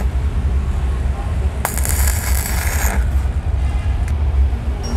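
Stick (arc) welder tack-welding a nut onto a motorcycle's steel double stand: the arc runs for about a second and a half, starting about a second and a half in.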